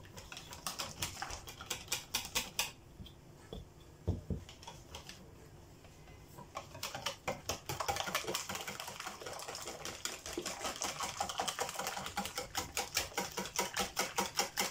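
Hand whisk beating crêpe batter in a bowl: quick, rhythmic clicking of the wires against the bowl, about five strokes a second. It is sparse and quiet at first, then settles into a steady beat about halfway through and grows louder toward the end.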